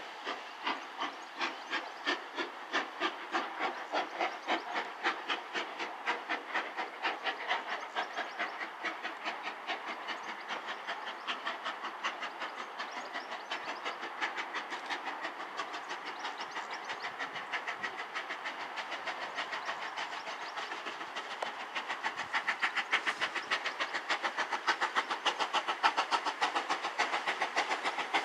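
GNR N2 class 0-6-2 tank locomotive chuffing as it pulls a train away, the exhaust beats quickening from about two a second to a rapid stream as it gathers speed. The beats grow louder over the last few seconds as it draws near.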